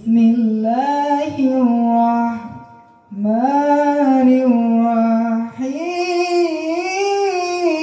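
A voice sings three long melodic phrases into a microphone. The voice runs through the Ashley Super M8 mixer's built-in DSP vocal effect, preset 7.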